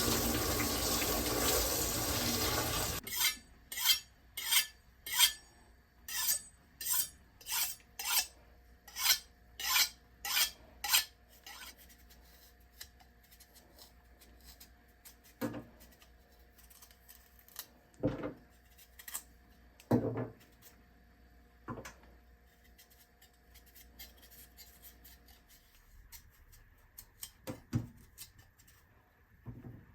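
A tap runs for about three seconds and shuts off. Then dishes and cutlery clink in a quick, even series of about a dozen strikes, followed by a few scattered knocks.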